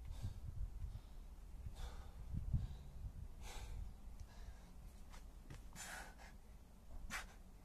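A man breathing hard from a high-intensity kettlebell and burpee workout, with about four sharp exhales a second or two apart. A low rumble runs under the first few seconds.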